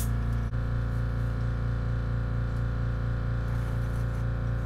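Small airbrush air compressor running with a steady hum, with a faint click about half a second in.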